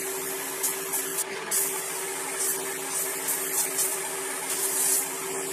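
Airbrush spraying paint in short repeated bursts of air hiss as the trigger is worked, over a steady hum.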